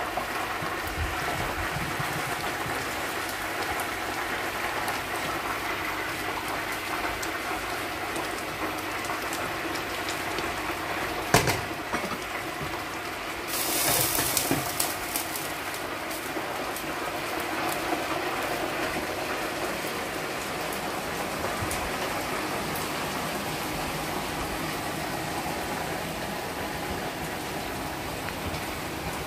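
Tomato stew boiling hard in a large stainless steel pan, a steady bubbling and spattering. About eleven seconds in there is a single sharp knock. Around fourteen seconds a glass lid goes onto the pan with a brief, louder clatter, and the boiling carries on under the lid.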